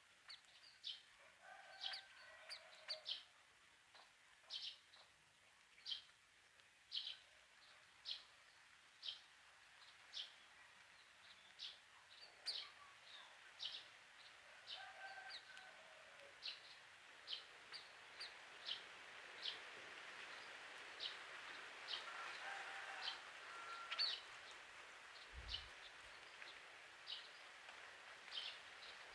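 Birds chirping: short, high chirps repeating about once a second, with a few lower calls now and then.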